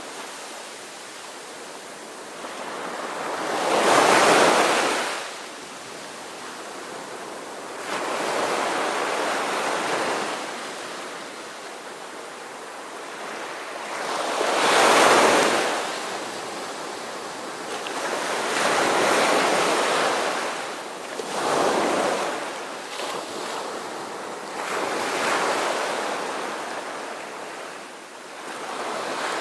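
Sea waves washing in: a rushing surf noise that swells and fades every few seconds, with the loudest surges about 4 and 15 seconds in.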